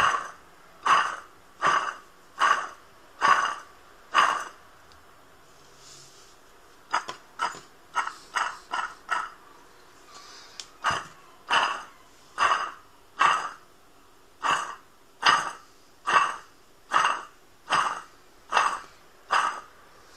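Failed Ruville water pump for an Opel Astra G, its toothed timing-belt pulley spun by hand over and over, each spin giving a short burst of noise from the pump that quickly dies away; about one spin a second, with two brief pauses. The noise is the sign of the pump's failure.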